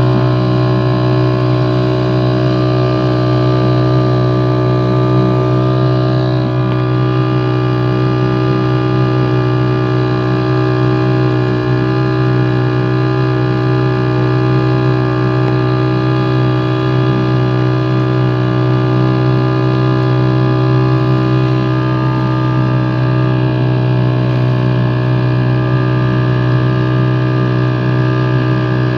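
Small boat's outboard motor running steadily at constant throttle: a loud, even hum with a steady whine over it.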